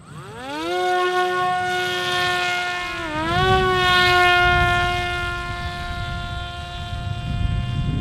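Parrot Disco flying wing's electric motor and pusher propeller spinning up to full power as it is hand-launched: a high whine that rises in pitch over about half a second, then holds steady as the plane climbs away, dipping briefly in pitch about three seconds in. Wind rumbles on the microphone underneath.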